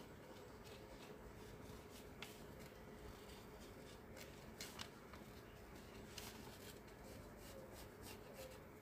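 Faint scratching of a pen tracing over paper laid on carbon paper and cardboard, with a few light ticks from the pen and paper, close to silence.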